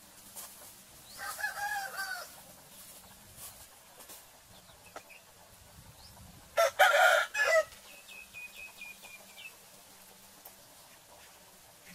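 Chickens calling: a pitched, gliding call about a second in, then a louder, harsher call in the middle, the loudest sound. A thin high peeping follows it.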